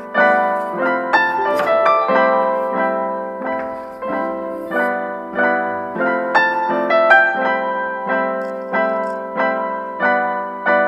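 Background piano music: a steady run of single struck notes, about two a second, each ringing and fading.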